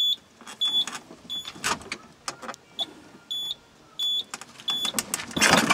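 Mobility scooter's warning beeper sounding short, high beeps at irregular gaps, roughly one or two a second, over the whirr of its electric motor. A loud rustling burst comes near the end.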